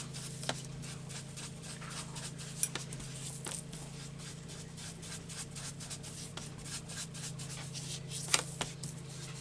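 Paper edges being inked with an ink pad: repeated short, scuffing rubbing strokes with a few sharper taps, over a steady low hum.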